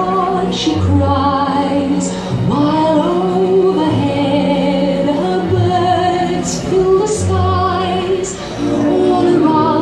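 Music with a woman singing long held notes with vibrato, in an operatic style, over a repeating bass line.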